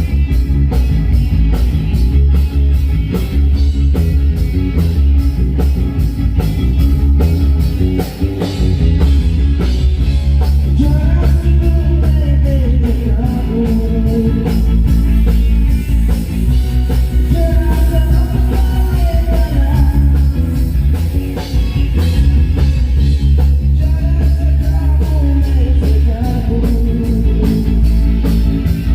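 Live rock band playing at a sound check: drum kit, heavy bass and guitar, loud and steady. A wavering melody line comes in about ten seconds in.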